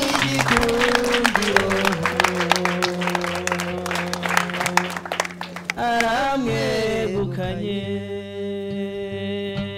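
Music with a singing voice holding long, steady notes over a busy percussive accompaniment; the percussion drops away about six seconds in, leaving a plainer held note.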